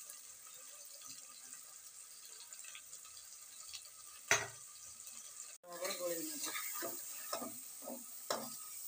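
Onions and tomatoes sizzling in hot mustard oil in an open pressure cooker, with a sharp knock about four seconds in. Through the second half a spatula stirs and scrapes the masala around the pot.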